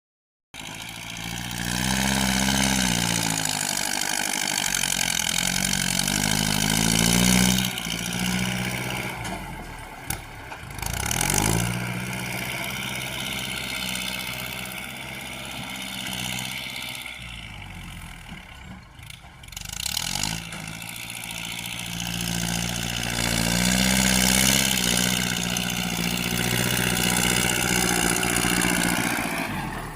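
Diesel engine of a piece of heavy earthmoving machinery running continuously, its pitch rising and falling as it revs up and down under load, with a couple of brief lulls.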